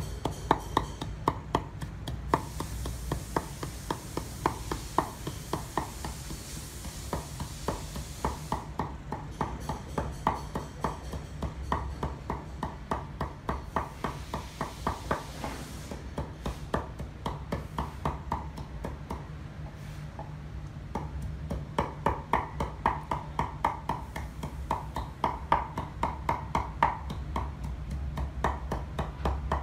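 Knife chopping red chillies on a wooden cutting board: a steady run of quick knocks, about three a second, with a short pause about two-thirds through.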